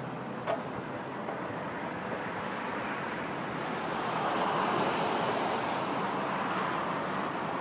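Steady road traffic noise with wind on the microphone, swelling a little past the middle. A single sharp click about half a second in.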